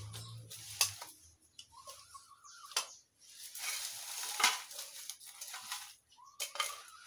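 Knocks and clatter of objects being handled and scraped during yard cleaning, the loudest knock about four and a half seconds in, with a stretch of scraping around it. A hen clucks in a short run about two seconds in and again near the end.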